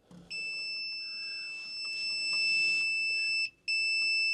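A multimeter's continuity beeper gives a steady high-pitched beep while its test leads bridge the red and yellow leads of a well pump motor. The beep signals a closed, low-resistance path through the motor winding. It cuts out for a moment about three and a half seconds in, as the probe contact breaks, then sounds again.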